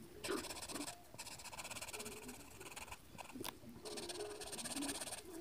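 Pencil shading on paper: rapid back-and-forth strokes in long runs of scratchy hiss, with short pauses about a second in and about three and a half seconds in.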